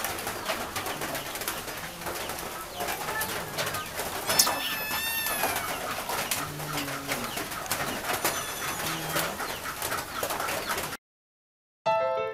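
Cats chewing and crunching fish bones: a dense stream of small clicks and crackles. A bird coos low and repeatedly in the background, and a high call sounds about four and a half seconds in. Near the end the sound cuts to a moment of silence, and then piano music begins.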